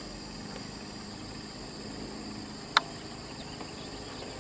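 Steady high-pitched drone of insects in outdoor vegetation, with a single sharp click a little past halfway.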